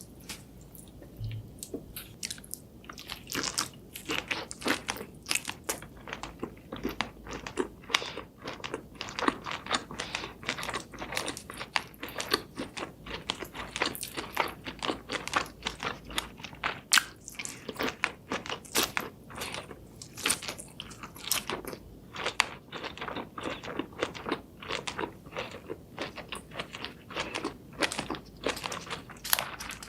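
Close-miked mukbang eating sounds: seafood being bitten and chewed, with a rapid, irregular run of crisp, crackly crunches that starts about two seconds in.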